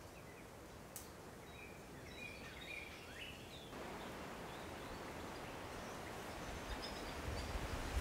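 Quiet forest ambience with a few faint short bird chirps, then, after an abrupt change about four seconds in, a steady rustle of wind through the tree canopy, with wind starting to rumble on the microphone near the end.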